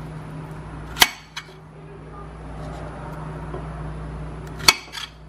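Chef's knife cutting through strawberries and striking a glass plate: two sharp clicks about three and a half seconds apart, each followed by a fainter tap, over a steady low hum.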